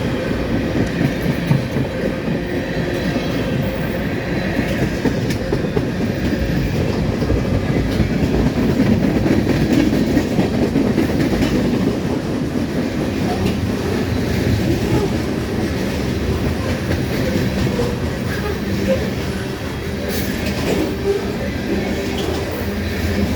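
Mixed manifest freight train's cars rolling past in a steady rumble, with wheels clacking over the rail joints.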